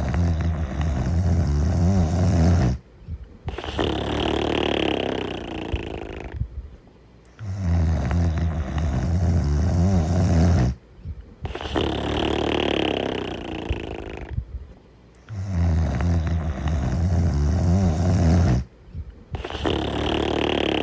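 A cartoon dog snoring in a steady repeating cycle: a low rattling snore on each in-breath, a short pause, then a breathy wheezing out-breath, about three full breaths.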